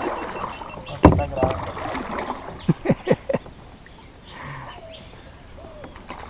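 A sharp knock about a second in, then a quick run of four or five dull thumps near the middle: a landing net and paddle being handled against a plastic fishing kayak's hull.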